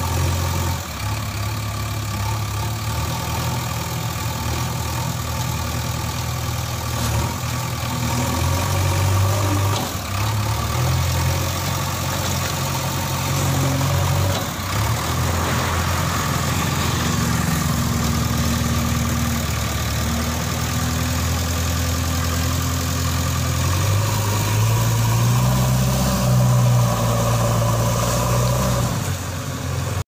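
JCB backhoe loader's diesel engine running under working load, its pitch rising and falling several times as the loader is worked.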